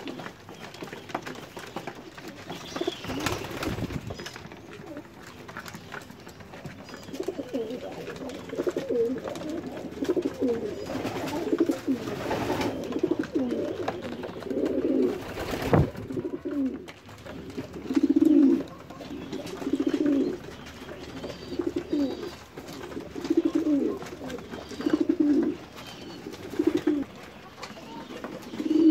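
Racing pigeons cooing over and over in their loft: low, rolling coos from several birds, coming in regular bouts in the later part, with a few short knocks along the way.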